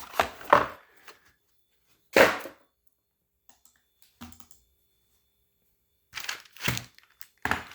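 Keyboard packaging and parts being handled during unboxing: scattered knocks and rustles, the sharpest about two seconds in and a small cluster near the end.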